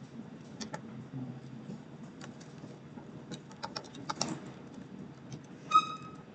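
Computer keyboard typing: irregular, light key clicks. Near the end comes a brief high-pitched tone, the loudest sound here.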